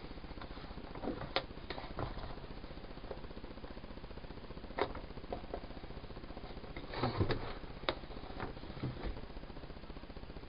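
Fixed-blade knife cutting and trimming thick interlocking foam floor mat: scattered short scrapes and clicks, busiest about seven seconds in, over a steady low hum.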